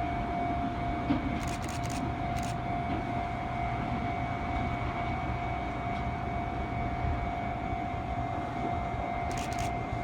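Level-crossing-style warning alarm at an Osaka Monorail track switch, sounding while the switch is being worked. It is heard as a steady high tone over background street noise.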